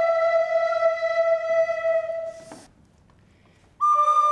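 Recorder ensemble of children playing descant and larger wooden recorders in two parts, holding a long chord that stops about two and a half seconds in. After a brief breathy noise and about a second of near silence, the group starts playing again, entering sharply near the end.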